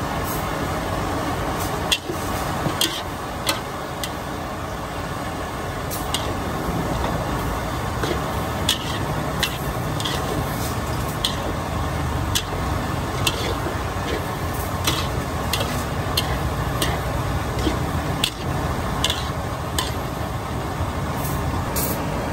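Steady din of a busy street-food stall with traffic noise behind it, broken by irregular sharp clicks and clinks of utensils, roughly one a second.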